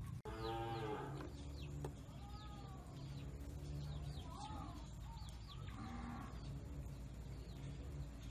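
Cattle mooing: one loud call just after the start, then several fainter calls, with small birds chirping in the background and a single knock around two seconds in.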